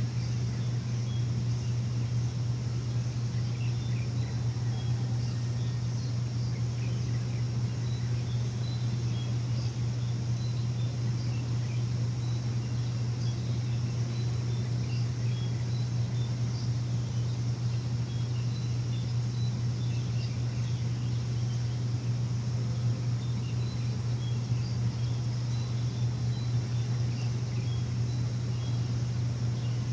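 A steady low machine hum that does not change, with faint, scattered bird chirps above it.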